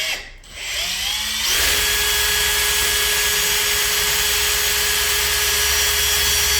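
Electric drill spinning up about a second in, then running steadily at speed as its bit cuts through thin sheet metal.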